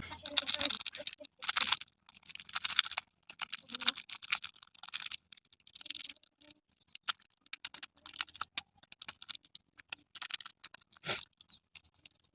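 Plastic candy wrapper crinkling and crackling as it is handled and torn open, in short clusters with brief pauses between them.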